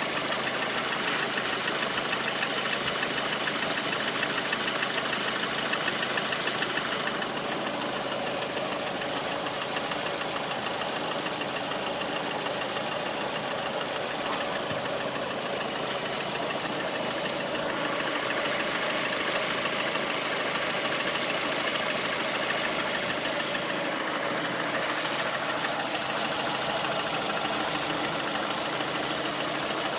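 Lada Priora's 126 engine (VAZ-21126, 1.6-litre 16-valve four-cylinder) running steadily with a piston knock, a clatter like a diesel. The service station diagnosed a worn piston group due for replacement.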